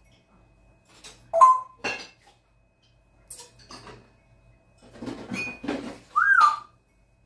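African grey parrot whistling and clicking. About a second in comes a short whistle that rises and then holds a note, followed by a few sharp clicks, a rough, noisy call around five seconds in, and a whistle that rises and falls near the end.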